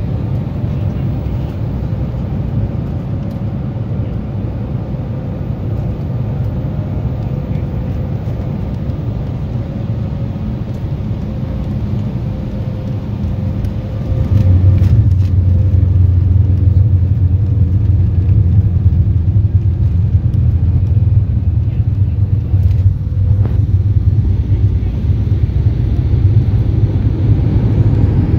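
Jet airliner landing, heard from inside the passenger cabin: steady engine and airflow noise on the final approach, with a faint tone that slowly falls. About halfway through the plane touches down, and the noise jumps to a much louder, deeper rumble as it rolls along the runway with its spoilers up.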